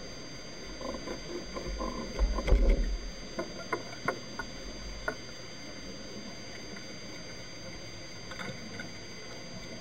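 A cluster of sharp clicks and knocks with a low thump, heard underwater through a sealed camera housing mounted on a speargun, over a steady hiss. The loudest knocks come about two and a half seconds in, a few faint clicks follow near the end.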